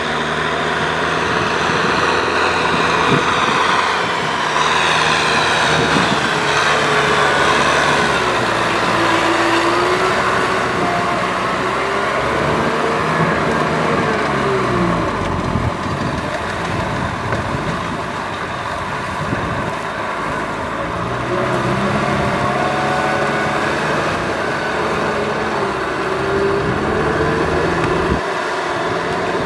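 Kubota M6040SU tractor's diesel engine working hard under load, its pitch rising and falling, while the rear rotary tiller churns through deep mud and water.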